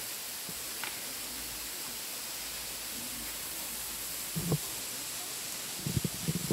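Steady rushing hiss of flowing stream water, with a few short low knocks about four and a half and six seconds in.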